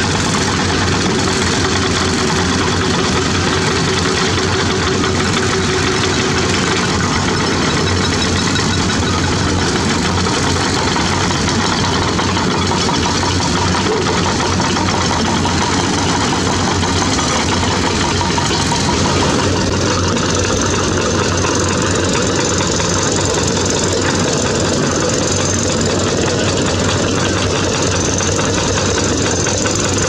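Crawler-mounted rock drilling rig hammering a hole into rock: a steady, rapid percussive clatter over its running engine.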